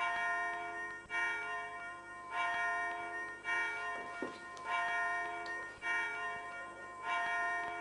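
Bell chimes struck in a slow, even rhythm, about one strike every 1.2 seconds, seven in all, each ringing on until the next.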